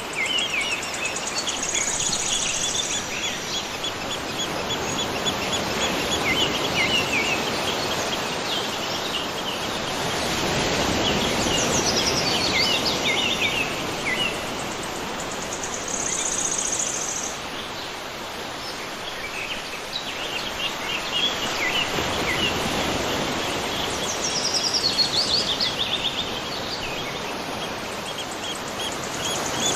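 Outdoor ambience of a steady rush of running water, with repeated high chirping calls of birds. A shrill high buzz comes in briefly three times, about every fourteen seconds.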